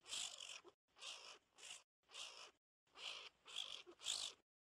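Skunk sound effect: a run of about seven short, faint hissing puffs, roughly two a second.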